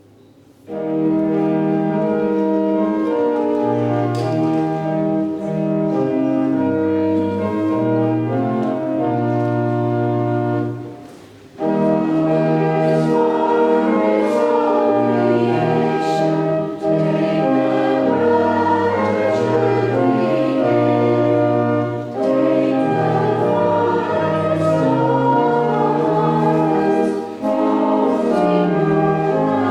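A hymn played on a church organ in slow, held chords over a steady bass line, pausing briefly between phrases about eleven seconds in; a congregation sings along, most clearly after the pause.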